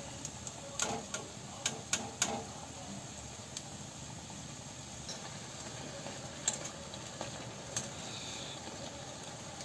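Urad dal vadas deep-frying in a kadai of hot oil: a steady sizzle. In the first couple of seconds a wire skimmer clinks against the pan a few times.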